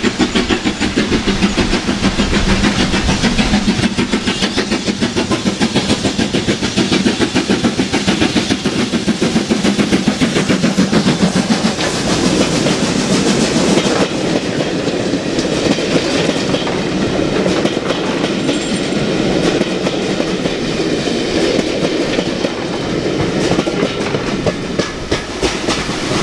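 BR Standard Class 5 4-6-0 steam locomotive passing with its exhaust beating in a quick, even rhythm. About halfway through the beats give way to the coaches rolling by, their wheels clicking over the rail joints.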